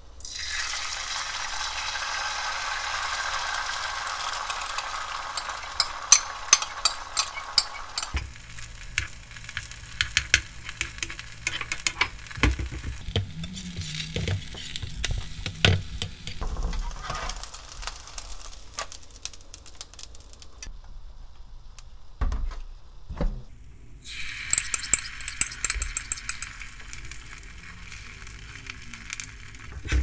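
Beaten egg sizzling as it is poured into a hot oiled nonstick frying pan, to fry a thin egg-sheet garnish. The sizzle fades after about eight seconds into a quieter hiss, with a metal slotted spatula clicking and scraping against the pan. A second strong sizzle starts a few seconds before the end as more egg goes into the pan.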